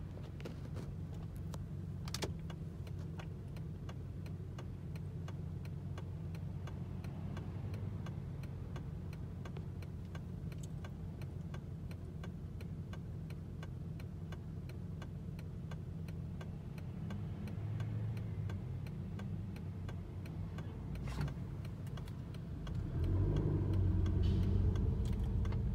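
Diesel school bus engine idling, heard through the windshield of a car behind it, then rising in a louder rumble as the bus pulls away near the end. A regular ticking runs underneath.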